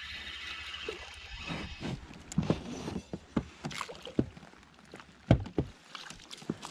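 Spinning reel whirring as line is cranked in during the first second or so, then water splashing and knocking around an inflatable boat as a hooked fish is brought alongside and netted, with a heavy thump about five seconds in.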